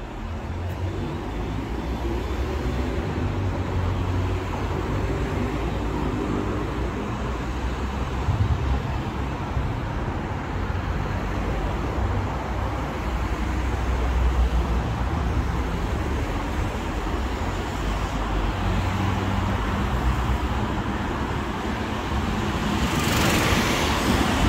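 Steady low rumble of road traffic, with a diesel-hauled train moving slowly away. Near the end a lorry passes close with a loud rising rush.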